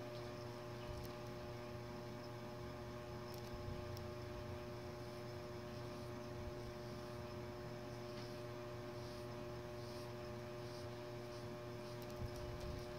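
Steady electrical hum made of several fixed tones, with faint soft dabs of paint on paper every second or so.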